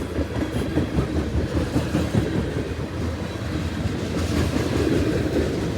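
Freight train cars rolling past at trackside: a steady rumble of steel wheels on rail, with a few wheel clicks from about four seconds in.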